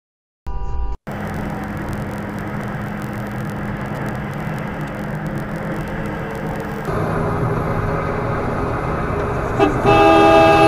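Road and engine noise inside a moving car at highway speed, picked up by a dashcam. A car horn sounds loudly for about a second near the end. A brief pitched blip comes about half a second in.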